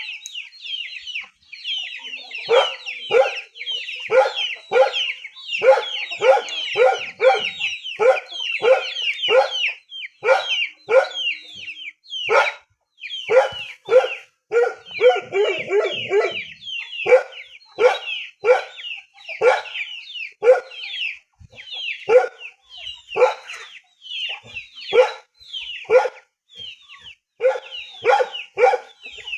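A dog barking over and over in short, high-pitched yelps, about one to two a second.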